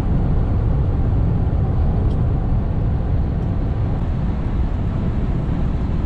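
Steady engine and tyre-on-road rumble heard inside a truck's cab while it drives along a highway at speed.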